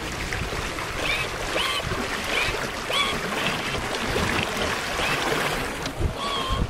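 Water rushing and splashing in the wake behind a small sailboat's stern. Short squeaky chirps come and go over it every second or so.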